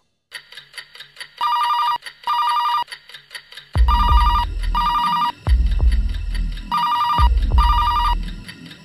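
Telephone ringing in a double-ring pattern, two short rings then a pause, three times over. From about four seconds in, a deep, booming background score with heavy recurring hits plays under the rings.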